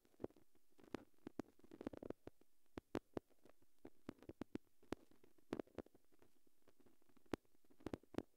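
Near silence with faint, irregular sharp clicks and ticks, several a second at times, over a low background hiss.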